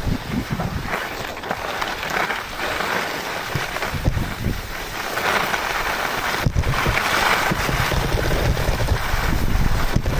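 Wind buffeting the microphone with a rushing hiss and low rumble, swelling twice, as on a downhill ski run.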